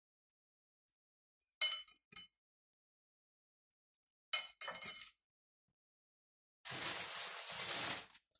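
Two short bursts of crockery clinking, about two and a half seconds apart, as syrup-soaked ladyfingers are handled between a plate and a ceramic baking dish, then a hiss of noise lasting about a second and a half near the end.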